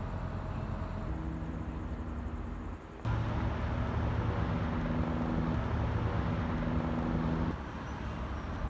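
Road traffic noise with the steady hum of a vehicle engine running, suddenly louder about three seconds in and easing off near the end.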